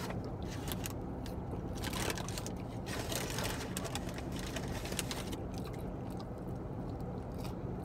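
Steady low hum of a car idling, heard from inside the cabin, with scattered small clicks and crinkles from handling food and packaging.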